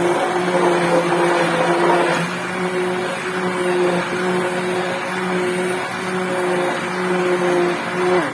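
Electric blender motor running steadily while blending a thick soup, with a hum under the whirring, then cutting off near the end.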